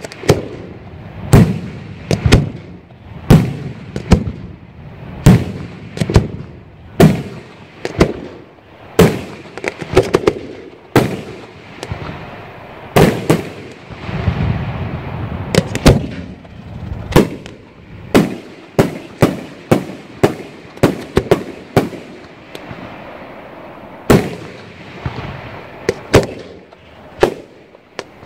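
Aerial fireworks shells bursting in a long run of sharp bangs, about one a second at first and coming faster and closer together in the second half, with a stretch of continuous rumbling about halfway through.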